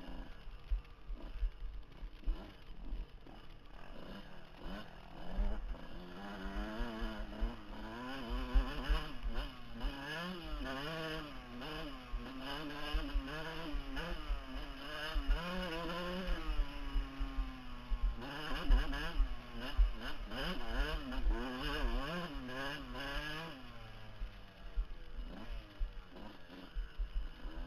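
Dirt bike engine heard close from the rider's helmet camera, revving up and down constantly under hard throttle on a rough hill climb. About two-thirds of the way through, the revs fall away steadily for a couple of seconds, then pick up again. Frequent low thumps run underneath.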